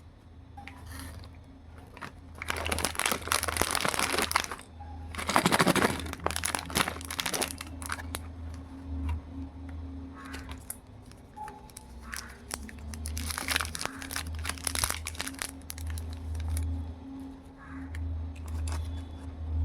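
Candy and chocolate wrappers crinkling as they are handled and opened. The crinkling comes in several irregular bursts of a second or two, the loudest about three to seven seconds in.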